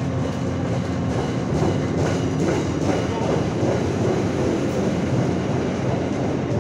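MBTA commuter rail coaches rolling past the platform as the train pulls out of the station, a steady loud rumble with a low hum and light clicking from the wheels on the rails.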